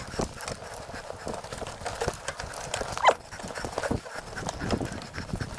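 Mountain bike rattling over a bumpy dirt trail: tyres on mud and leaves with a stream of irregular knocks and clatter from the bike, and one loud knock about three seconds in.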